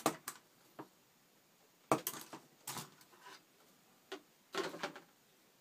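Hobby knife cutting a small part off a plastic model-kit sprue: a string of sharp plastic clicks and taps at irregular intervals, with the biggest ones about two seconds in and near the end.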